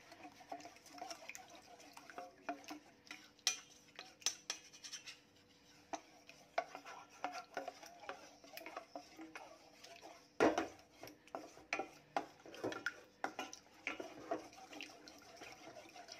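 Wooden slotted spatula stirring coconut cream and rice flour in a stainless steel saucepan, scraping and tapping against the pot's sides and bottom in an irregular run of light clicks. There is one louder knock about ten seconds in.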